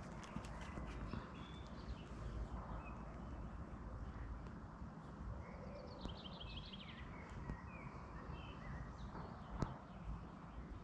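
Faint outdoor ambience with small birds singing, including a quick run of rapid chirps about six seconds in. A single sharp click comes near the end.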